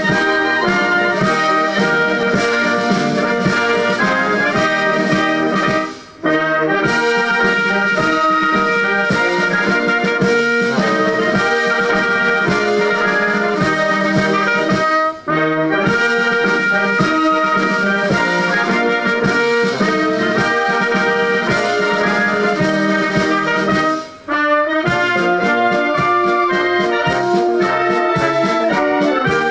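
Brass band music with trumpets and trombones playing a steady melody, breaking off briefly three times between phrases.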